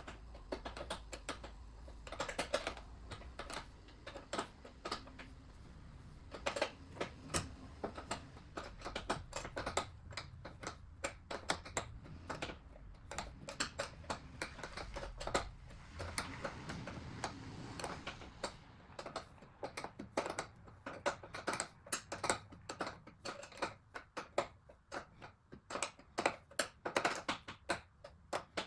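Hand-tool work on metal parts: a long run of irregular sharp clicks and light knocks, coming in quick clusters with short pauses between them.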